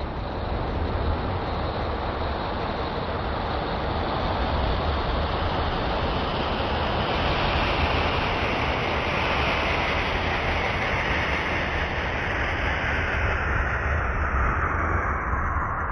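Voyager spacecraft plasma wave recordings made audible: a steady rushing hiss over a low rumble. A brighter band in the hiss slides slowly and continuously down in pitch.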